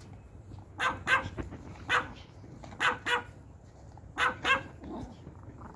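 Pomeranians barking: seven short, sharp yaps, mostly in quick pairs about a third of a second apart.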